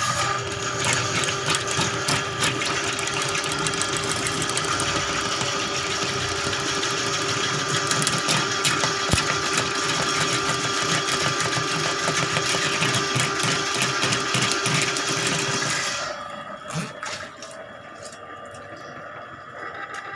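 Electric drain-cleaning machine running, a fast mechanical rattle over a steady motor hum, then shutting off about sixteen seconds in.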